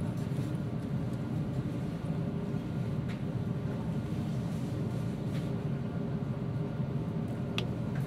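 Steady low rumble and hum of background noise, with a few faint short clicks about three, five and seven and a half seconds in.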